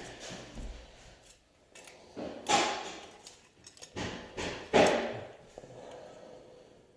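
Hand work with tools on a small part: several short bursts of scraping and knocking noise, the loudest about two and a half and five seconds in.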